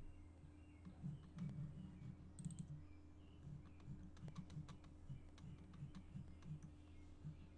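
Faint, irregular clicking of a computer mouse and keyboard over a low steady hum.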